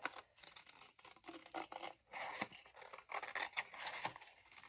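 Scissors cutting paper in short, irregular snips, with the paper scraping and rustling as it is turned.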